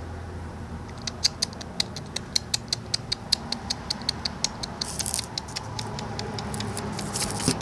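A pet dog making a fast, irregular run of sharp clicks, about six a second, starting about a second in. Two short hissing rustles come about five and seven seconds in.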